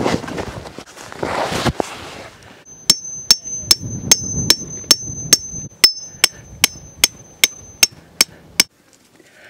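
Heavy canvas rustling as it is handled, then a hammer driving a steel tent peg into hard ground: about fifteen sharp, ringing metal-on-metal strikes at an even pace of roughly two and a half a second, stopping about a second before the end.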